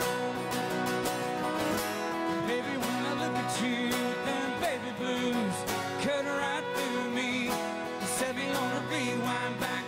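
Live acoustic country music: a fiddle plays a sliding, wavering melody over two strummed acoustic guitars.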